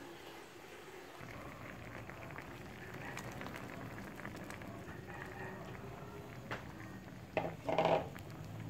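Chicken simmering in coconut cream in a frying pan: a steady light bubbling and fine crackle. Near the end come two brief louder noises.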